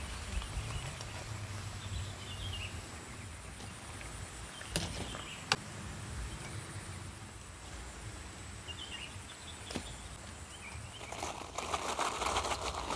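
Metal kitchen tongs clicking a few times against the wok and strainer over a low rumble, with faint bird chirps. Near the end, a louder rustling clatter as fried chicken nuggets tumble out of a wire-mesh strainer onto a banana leaf.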